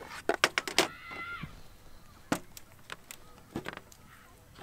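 Sharp clicks and knocks of tube legs being pushed and wedged into the sockets of a black plastic camp-gear frame, with a brief high squeak about a second in.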